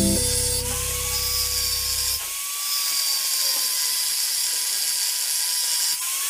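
Angle grinder with an abrasive cutting disc slicing through the steel shell of a refrigerator compressor: a steady high-pitched grinding whine, its tone wavering slightly as the disc bites.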